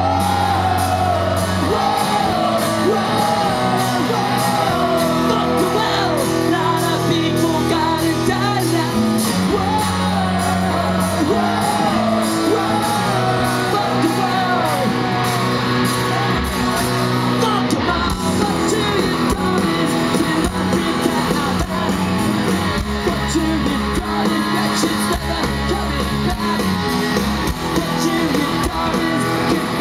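Punk rock band playing live: electric guitars, bass and drums with sung and shouted vocals, loud throughout.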